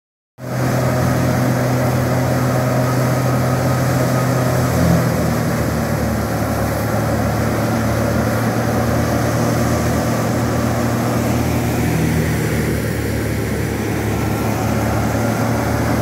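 Tractor-powered wheat thresher running steadily while cut wheat is fed into it: a continuous mechanical drone of the tractor engine and the spinning threshing drum, with a constant hiss over it.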